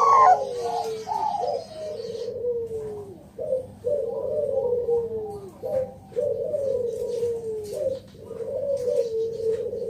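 Bangkok-strain zebra dove (perkutut) in full song: a string of drawn-out, falling coos, one every second or two, with a few short clipped notes between them.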